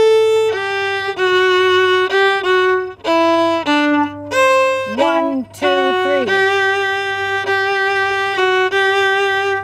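Solo fiddle playing a short phrase slowly, one bowed note at a time with some notes slurred, ending on a long held note.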